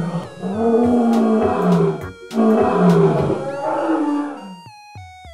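Two long dinosaur roar sound effects, one after the other, each dropping in pitch, for a T. rex puppet. Near the end comes a short run of stepped falling tones.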